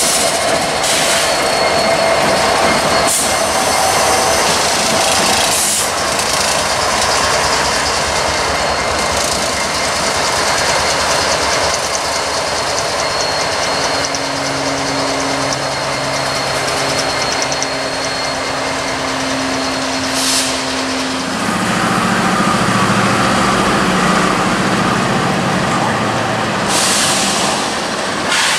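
Norfolk Southern diesel locomotives rolling past on the rails: a loud, steady mix of wheel-on-rail noise and engine sound, with a low engine drone coming up about halfway through.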